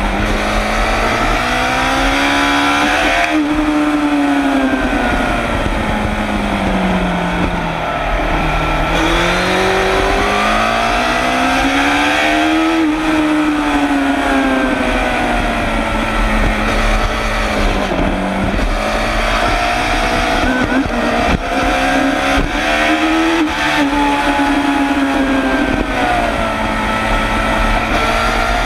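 Suzuki GSX-R750 SRAD inline-four racing engine at full effort, heard from on board: the revs climb steeply through the gears, then fall away under braking and downshifts, several times over.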